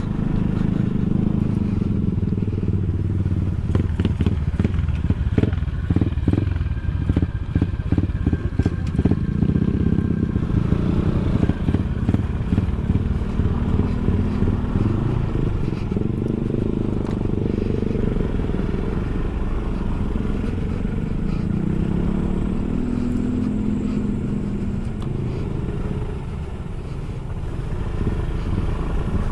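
SYM Cruisym 250 scooter's single-cylinder engine running on a rough dirt track, its pitch rising and falling with the throttle. A run of clicks and knocks from the ride over the loose, stony surface comes between about two and ten seconds in.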